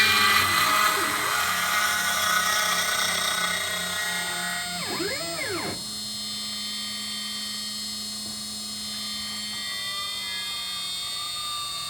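CNC router spindle with a 1/4-inch bit running in clear heart redwood, a steady whine with many high tones as it finishes the last cuts. About five seconds in comes a brief whine that rises and falls in pitch, then the spindle runs on more quietly with the cutting done.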